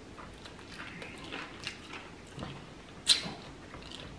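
Close mouth sounds of a man chewing roast chicken: faint wet smacks and clicks, with one louder smack about three seconds in.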